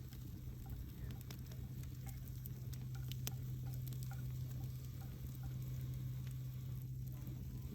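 Wood fire burning, with irregular small crackles and pops from the burning wood over a soft hiss. A steady low hum runs underneath.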